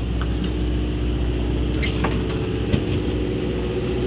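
Steady hum of a fishing boat's engine running at idle, with a few faint clicks and knocks about halfway through.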